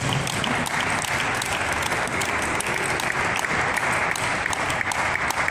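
Spectators applauding, a steady dense clapping.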